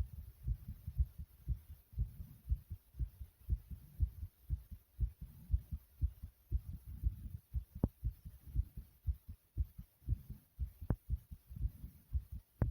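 A person's heartbeat pounding fast after exercise (jumping jacks): a quick, steady run of low, dull thumps.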